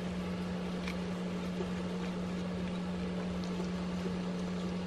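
A person chewing a soft, chewy cream roll cake, with a few faint mouth sounds, under a steady low hum.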